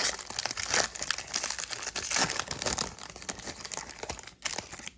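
Crinkling and rustling of a trading-card pack's foil wrapper being handled, continuous and crackly, stopping just before the end.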